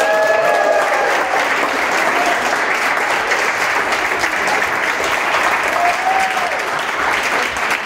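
Small audience applauding steadily, with a few voices cheering briefly near the start and once or twice more.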